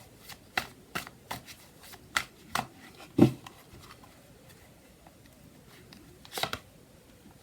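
A tarot deck being shuffled by hand: a run of quick card flicks and snaps, one heavier tap of the cards about three seconds in, then a pause and a short flurry of card sounds near the end.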